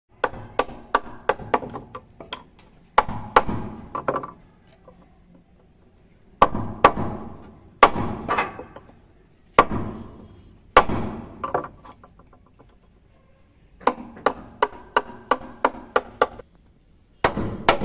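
Hammer blows on wood, struck in runs of several quick blows with short pauses between runs, each blow ringing briefly: carpentry hammering.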